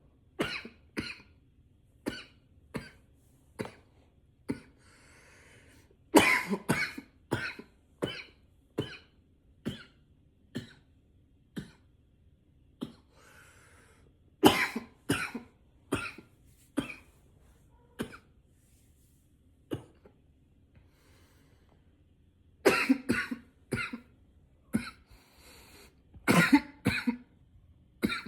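A man coughing over and over: single coughs about once a second, broken by several louder fits of quick coughs, with breaths drawn in between.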